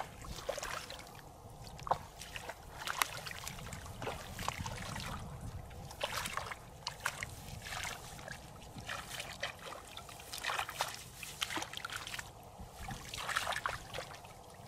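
Hands groping and sloshing through shallow muddy paddy water while feeling for fish, with irregular small splashes and trickles.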